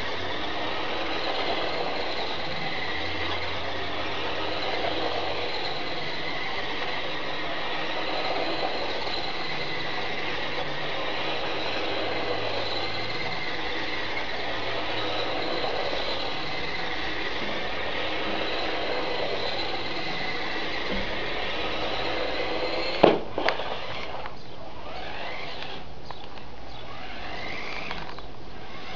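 Electric motor and plastic gearbox of a Nikko Lazer 3 radio-control car whining steadily, the pitch wavering slightly as it drives. Near the end a sharp click, after which the whine stops.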